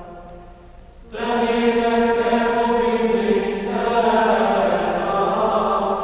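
Chanted singing with long held notes: one phrase fades out, and a new one comes in sharply about a second in.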